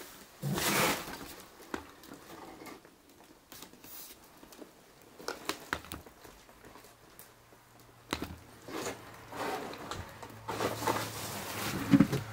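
Footsteps and rustling of someone moving through a cluttered room: scattered light clicks and rustles, with a louder rustle about half a second in and more near the end. A faint low hum comes in about eight seconds in.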